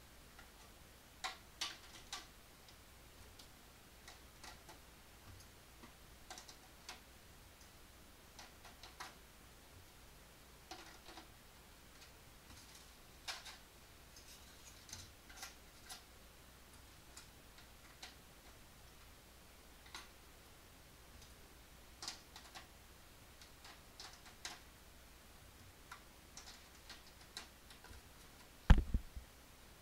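Clear plastic blister packaging crinkling and clicking as it is handled, in scattered short crackles. Near the end comes a single louder low thump.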